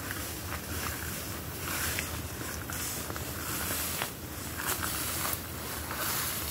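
Footsteps swishing through tall grass, with a long wooden pole brushing the grass, a few light knocks and a low steady hum underneath.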